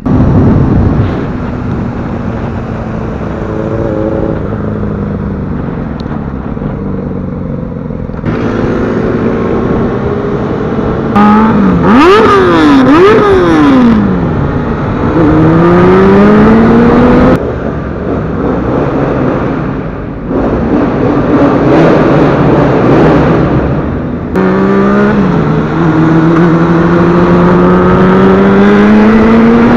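A motorcycle engine pulling away and accelerating through the gears: its pitch climbs, drops at each upshift, then climbs again, with quick throttle blips near the middle. Wind rushes over the microphone the whole time.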